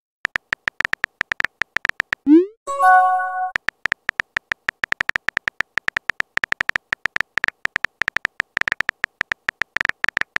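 Rapid keyboard tapping sounds from a texting-app animation as a message is typed letter by letter. About two seconds in, a short rising swoosh and then a bright multi-tone chime sound for a chat message, after which the typing resumes.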